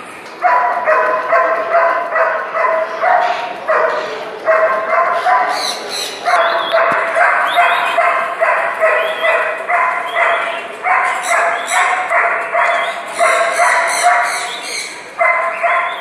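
A dog barking over and over, about two barks a second in long runs broken by brief pauses.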